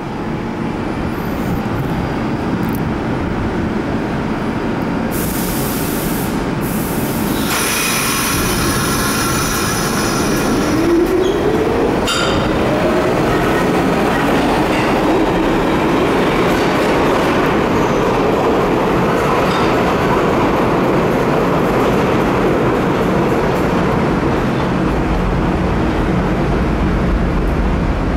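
R46 subway train pulling out of an underground station: a brief hiss of air about five seconds in, then its traction motors start a whine that rises steadily in pitch as the train accelerates, over the continuous rumble of wheels on the rails.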